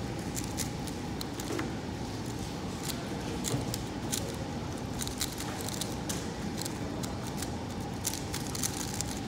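Rapid, irregular clicking of an MF3RS3M 3x3 speed cube being turned fast during a timed solve, over steady room noise.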